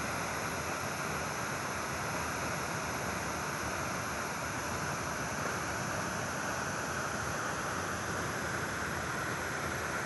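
Waterfall rushing steadily: a constant, unchanging hiss of water falling and splashing onto rock.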